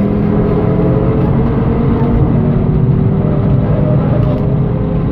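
Audi TT-RS's turbocharged inline five-cylinder engine pulling hard at full throttle, heard from inside the cabin, with an upshift from fourth to fifth gear partway through and the revs climbing again afterwards.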